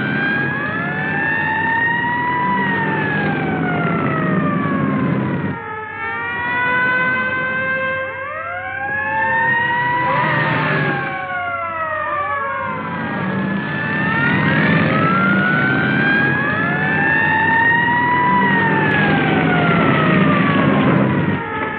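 Several police car sirens wailing at once, each rising and falling in pitch and overlapping the others, over the rumble of car engines. The sound is narrow and muffled, as on an old film soundtrack.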